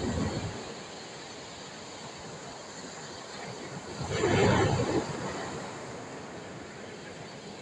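Mediterranean sea waves washing onto the shore, a steady surf with a louder wave breaking about four seconds in.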